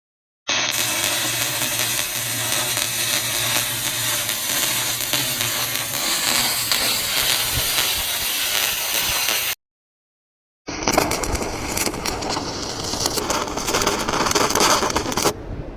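Steady machinery noise with a strong hiss and a low hum, cut off abruptly about ten seconds in; after a second of silence, a different stretch of machine noise with many short clicks and knocks.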